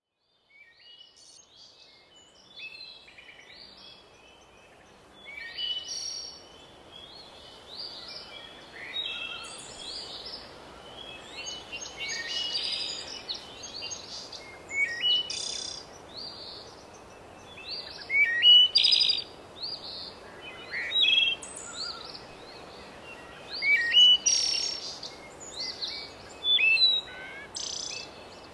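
Many birds chirping and singing over a faint steady background hiss, fading in from silence during the first few seconds, with louder, sharper calls in the second half.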